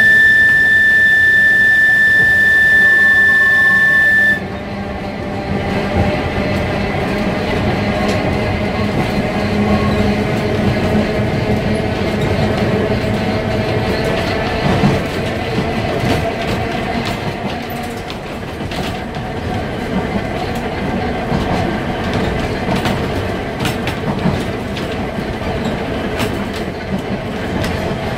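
Manx Electric Railway tram 20 running along the line, heard from inside its wooden saloon: a steady rumble and hum with frequent clicks from the wheels over the rail joints. For the first four seconds a loud, steady high-pitched tone sounds over it and then cuts off sharply.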